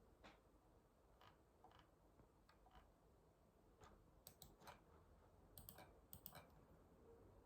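Near silence broken by a dozen or so faint, short clicks, scattered and more frequent in the second half.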